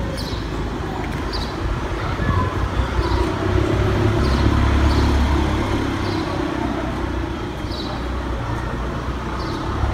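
Street traffic noise: a motor vehicle's low rumble that swells to its loudest around the middle and then eases off, with faint short high chirps about once a second.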